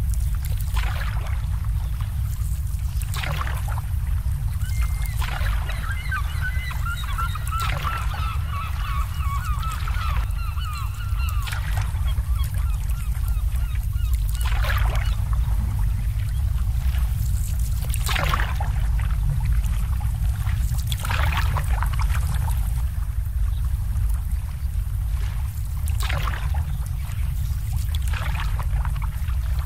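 Water lapping and splashing irregularly against moored boats over a steady low rumble. A bird, likely a goose or other waterfowl, calls in a rapid string of notes for several seconds, starting about five seconds in.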